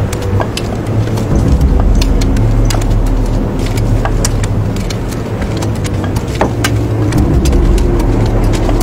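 Blizzard wind as a steady low rumble, with scattered sharp knocks of pickaxes striking frozen ground.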